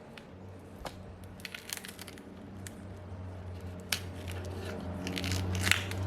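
A phone screen being pried off its frame: scattered small cracks, ticks and crackles as the glued panel and its adhesive give way, with a quick cluster near the end, over a low steady hum.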